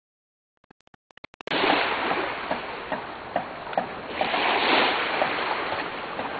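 Water splashing and small waves washing at a beach shore: a steady rush with small splashes in it, starting abruptly about a second and a half in after a few faint clicks.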